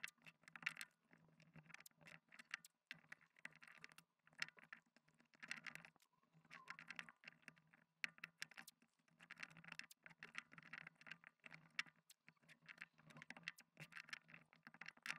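Faint, irregular crackling and small clicks of tape being laid and pressed down onto the back of a keyboard PCB during a tape mod.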